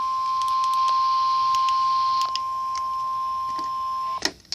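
Weather-radio warning alarm tone, the single steady tone of about 1050 Hz that announces a severe thunderstorm warning. It holds at one pitch and cuts off suddenly near the end, with scattered faint clicks of static over it.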